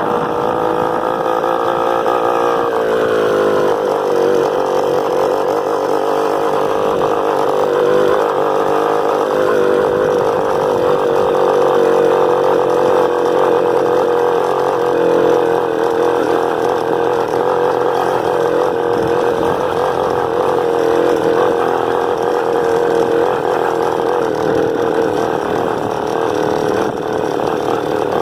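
Honda CG 125's small single-cylinder four-stroke engine running under way, a steady buzzing note with a drop in pitch about two to three seconds in before it settles again.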